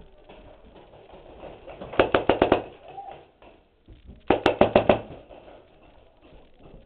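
Paintball marker firing two quick strings of about six shots each, a couple of seconds apart.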